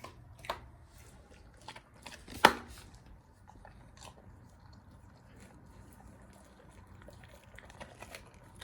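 A German Shepherd gnawing on a raw lamb rib bone: scattered crunches and clicks of teeth on bone, with one loud crack about two and a half seconds in.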